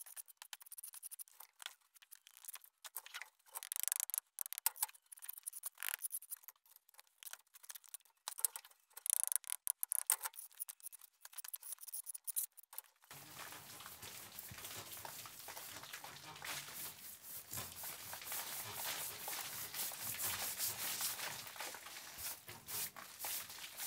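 Bricklayer's steel trowel scraping and tapping on fresh mortar and bricks in short, sparse strokes. About halfway through it gives way to a steady rough scratching as the new brickwork is rubbed down by hand.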